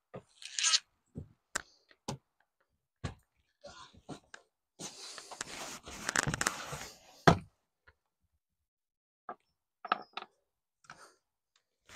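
Scattered knocks and thuds on wooden porch steps and a loose railing, with shuffling and tool-belt handling noise. A sharp knock comes about seven seconds in.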